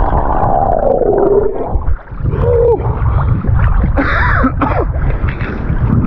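Swimming heard underwater through an action camera's housing: a muffled low rumble of moving water with gurgling bubbles and short gliding squeaky tones.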